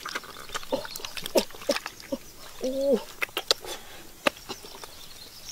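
Hands digging through wet mud, a string of squelches and sharp wet smacks. A short pitched call sounds about two and a half seconds in.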